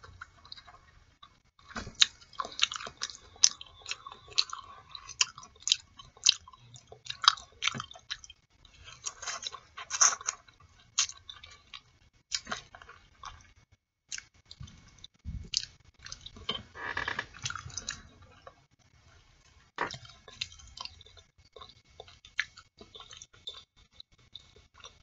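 Close-miked wet mouth sounds of eating boiled artichoke leaves: the leaves scraped between the teeth and chewed, heard as irregular short smacks and clicks with brief pauses.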